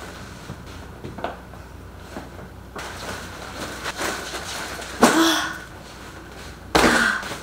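Handling noise of fabric insulated shopping bags and footsteps on a wood floor as they are carried in and lifted onto a kitchen counter, with two short, loud vocal sounds from the person carrying them, about five seconds in and near the end.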